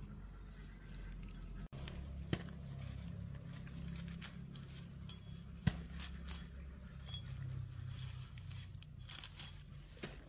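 Leafy water vegetables being picked by hand: stems snapping and leaves rustling and tearing. A few sharp snaps stand out, the loudest about two and a half and five and a half seconds in, over a low steady rumble.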